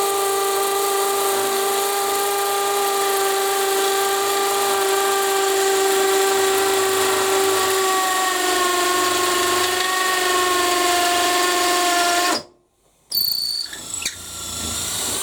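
Makita XPH07 18 V brushless hammer drill on high gear in hammer mode, boring a 16 mm masonry bit into a cinder block: a steady, high-pitched whine over a harsh rattle that sags slightly in pitch toward the end. It stops abruptly about twelve seconds in, followed by a few brief clatters.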